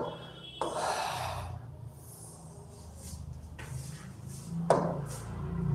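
Faint rubbing and a couple of light taps from a pen working on an interactive whiteboard, over a low steady hum. The rub comes about a second in, and the loudest tap comes near the end.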